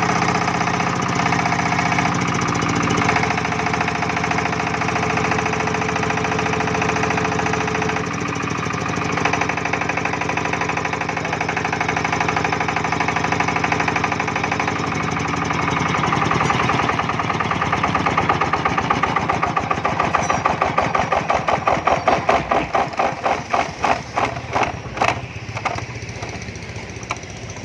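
Yanmar TF155 single-cylinder diesel engine running steadily, its pitch stepping down a few times as it slows. In the second half the separate firing strokes can be heard, coming further and further apart and fading as the engine is shut off and runs down to a stop.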